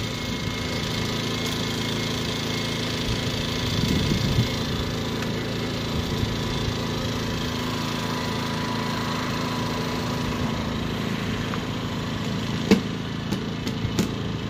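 Westinghouse iGen2500 inverter generator's small four-stroke engine running steadily and quietly, freshly filled with 10W30 oil. A few sharp clicks and knocks come near the end.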